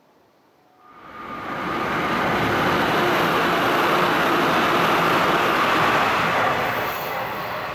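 Tsukuba Express TX-1000 series electric train passing through the station without stopping: the rush of wheels on rail and running gear swells in suddenly about a second in. It holds loud and steady with a faint whine, then eases slightly near the end.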